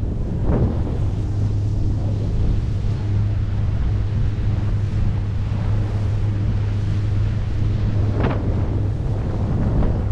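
Wind rushing over the microphone of an action camera on a banana boat towed at speed across the sea, mixed with the hiss of the churning wake, over a steady low hum. Two brief louder surges cut through, about half a second in and about eight seconds in.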